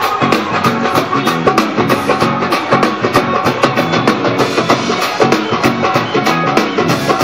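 Live Punjabi dhol drumming: several dhols played together with sticks in a fast, steady rhythm.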